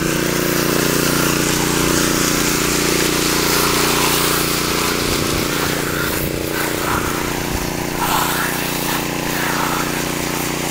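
Small gasoline engine of a walk-behind power trowel running steadily, working water into the surface of green concrete to bring up cream.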